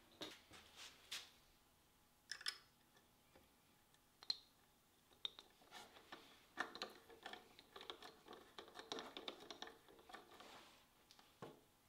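Light handling noises: scattered single clicks and taps, then a busier run of small clicks and scratches in the second half.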